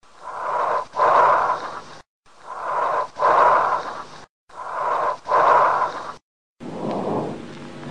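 Lung breath sounds heard through a stethoscope: three breaths, each a shorter inhalation, a brief pause, then a longer and louder exhalation, the pattern of bronchial breathing. About six and a half seconds in, a quieter, lower-pitched breath sound starts.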